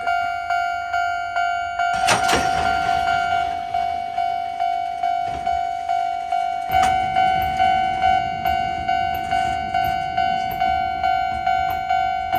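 Japanese level-crossing warning bell ringing in a steady rhythm of repeated electronic dings. There is a loud burst about two seconds in, and from about seven seconds in a passing train's rumble joins the bell.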